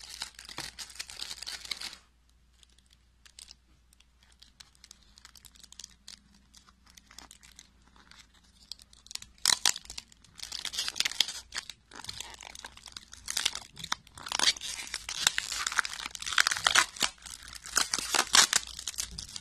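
Clear plastic wrap crinkling and tearing as it is peeled off a plastic deli cup, in dense bursts through the second half. A short crinkle at the start, then a few seconds of light handling clicks.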